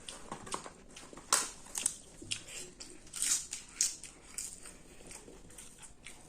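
A person biting and chewing crunchy food close to the microphone: a run of irregular crisp crunches, the loudest about a second and a half in and again around three and a half seconds in.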